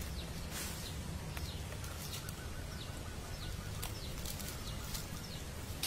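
Dry fallen leaves rustling and crackling in a few short bursts as they are poked and moved by hand and stick, over a steady low rumble, with faint short bird chirps.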